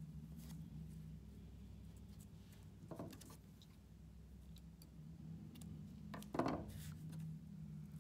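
Scissors snipping through yarn twice, about three seconds apart, the second snip louder, over a steady low hum.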